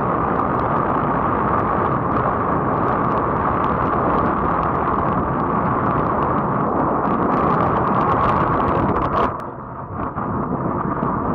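Motorboat under way: a steady, loud run of engine and rushing wind noise, which drops suddenly and becomes quieter a little after nine seconds in.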